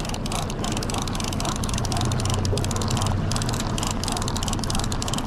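A boat's engine running steadily, with fast, irregular ticking over it.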